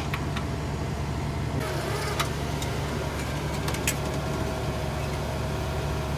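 Steady low hum of an idling van engine, with several light clicks and knocks over it.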